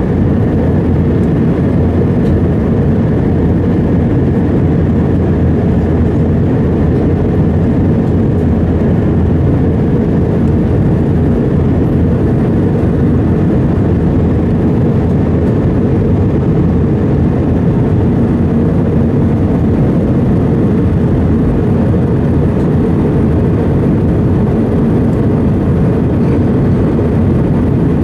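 Steady cabin drone of an Airbus A320 in flight: engine and airflow noise, loud and even, with a faint steady hum in it.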